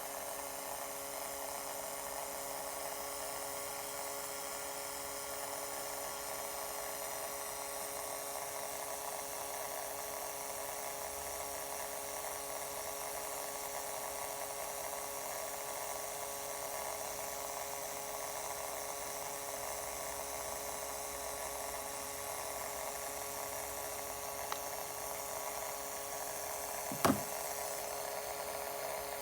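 Acer Predator G9-593 laptop's internal speakers giving out a steady electrical buzz made of several constant tones over a high hiss. It is the sign of electronic interference from motherboard components as the system heats up, which the owner guesses comes from the southbridge or something near it. A short sharp click comes near the end.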